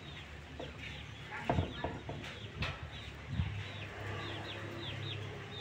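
Chickens clucking, with many short, high chirping calls that fall in pitch, a couple of knocks, and a low steady hum that starts about three and a half seconds in.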